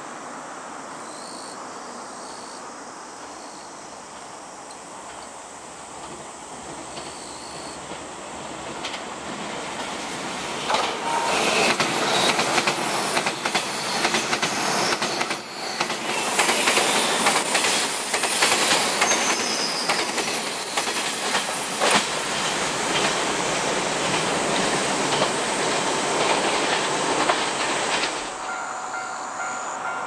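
A JR 381 series electric limited express passing close by on curved track. From about ten seconds in it swells into a loud run of rapid clickety-clack as the wheels cross rail joints, with a thin high wheel squeal from the curve above it. The sound cuts off shortly before the end.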